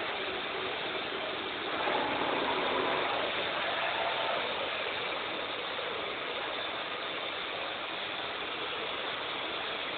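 CNC lathe running with a steady machine noise that grows a little louder for a couple of seconds, about two seconds in.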